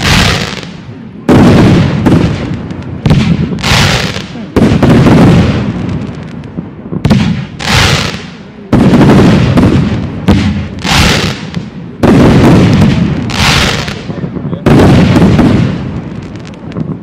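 Aerial firework shells bursting in a rapid series of loud bangs, roughly one a second, each dying away over about a second before the next.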